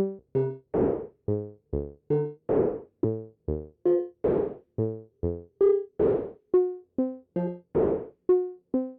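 Modular synthesizer playing a sequenced pattern of short, decaying notes, about three a second. Pitched notes in a minor scale alternate with noisy, drum-like hits, run through a Wasp filter and delay.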